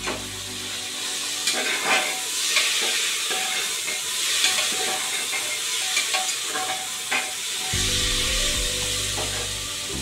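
Bottle gourd and chana dal sizzling in an open aluminium pressure cooker while being stirred with a metal ladle, which scrapes and knocks against the pot several times.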